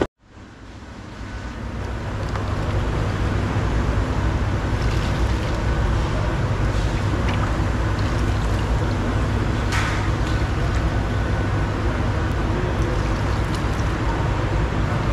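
Steady low rumble of commercial kitchen machinery running, rising out of a brief silence over the first two seconds. There is one short clink about ten seconds in.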